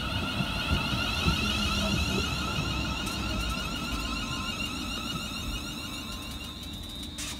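Siemens Desiro Class 380 electric multiple unit pulling into the platform: its traction inverters give a steady high whine in several pitches over the low rumble of wheels on the rails. The whine and rumble ease off a little near the end as the train slows.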